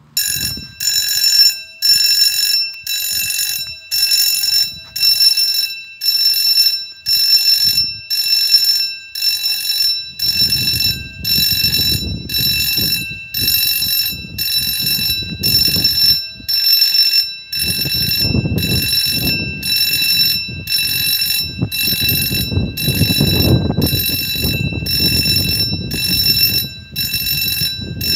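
German railway level-crossing warning bell ringing in loud, high pulses about once a second, starting suddenly: the crossing has been triggered by an approaching train. A low rumble sits underneath from about ten seconds in.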